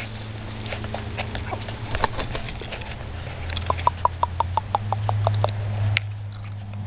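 A chicken clucking in quick runs of short notes, about six a second, over a low steady hum.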